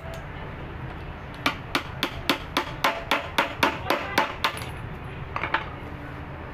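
Hammer blows on a screwdriver used as a drift inside a Honda City steering rack housing, tapping out the worn rack bushing. About fourteen quick metallic strikes, four or five a second, start a little over a second in, and two more follow near the end.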